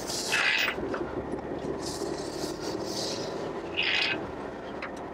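Steady road and engine noise inside the cabin of an Ineos Grenadier on the move. Two short higher-pitched sounds stand out, one just after the start and one about four seconds in.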